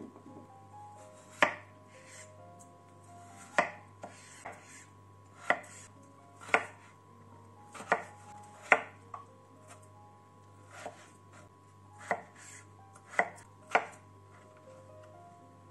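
Chef's knife chopping raw potato into cubes on a plastic cutting board: about a dozen single knife strikes knocking against the board, spaced irregularly a second or so apart.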